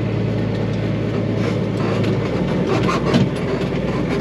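Tractor engine running steadily, with loose metal rattling and clanking over it.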